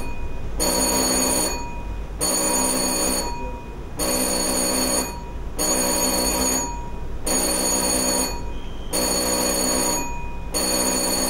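Ship's alarm bell ringing in evenly spaced rings of about a second each with short gaps, about seven in all: the alarm signal for a passenger drill.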